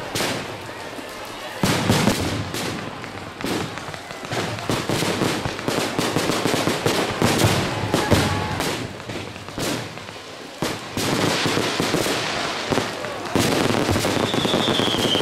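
Fireworks display: aerial shells bursting in quick succession, a dense run of bangs and crackles. A falling whistle from a firework starts near the end.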